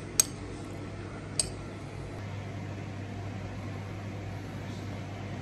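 A metal spoon clinks twice against a bowl, about a second apart, short bright ringing taps over a steady low hum.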